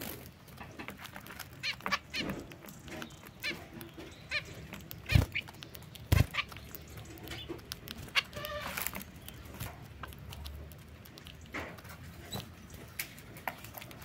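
Zebra finches pecking at mixed seed in a feeder tray: scattered sharp clicks of beaks on seed and tray, with two louder thumps about five and six seconds in. A short nasal finch call sounds a little past the middle.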